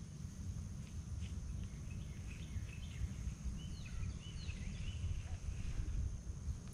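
Outdoor lake ambience: a steady low rumble with a scattering of faint, short bird chirps through the middle.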